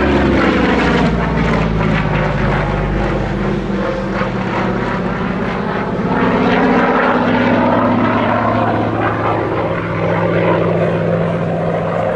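Goodyear FG-1D Corsair's Pratt & Whitney R-2800 Double Wasp, an 18-cylinder radial, running hard in flight with its propeller. The pitch of the engine note falls over the first few seconds and climbs again in the second half.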